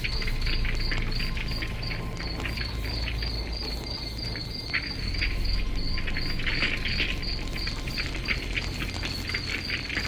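Crickets chirping in a steady pulsing rhythm, about three chirps a second, with scattered crackles and a low rumble underneath.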